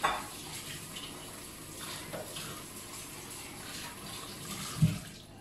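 Kitchen tap running into a stainless-steel sink while something is washed by hand under the stream. A single thump comes near the end, and the water stops just after.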